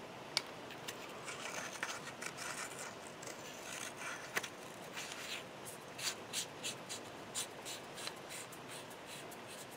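A battery slid into a small metal flashlight and its tail cap screwed back on along the greased threads: a couple of sharp clicks and runs of short, faint rubbing scrapes, a few a second.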